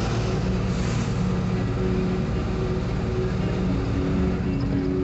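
Bus engine running steadily with road noise, heard from inside the cabin as a low, even drone. A brief rush of hiss comes about a second in.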